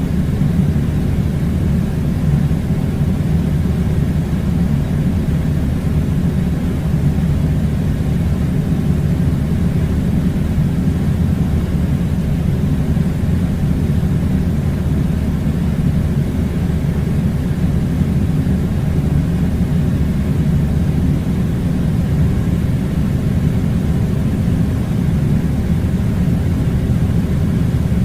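A steady low rumbling drone that stays even throughout, with no rises, falls or distinct strokes.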